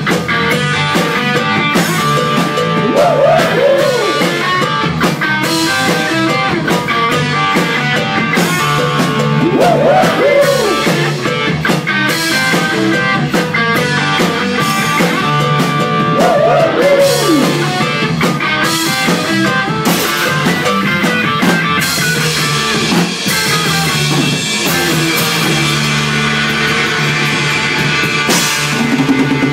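Live rock-and-roll band playing loud, with electric guitar, bass guitar and drum kit.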